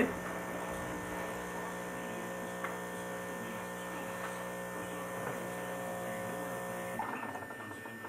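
Krups XP9000 espresso machine's 15-bar pump running with a steady hum as it dispenses coffee into the cup, cutting off about seven seconds in as the cappuccino cycle ends.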